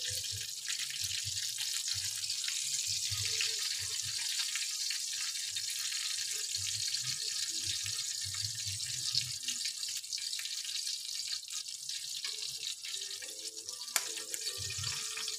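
Salmon steaks sizzling in hot oil in a frying pan, a steady hiss, with light knocks of a spatula and metal tongs against the pan as the fish is lifted out and one sharp clink near the end.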